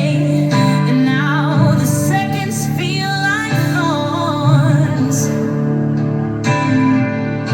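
Recorded song: a female voice sings long notes with a wavering vibrato over sustained low accompaniment, and the voice drops out about four and a half seconds in while the accompaniment carries on.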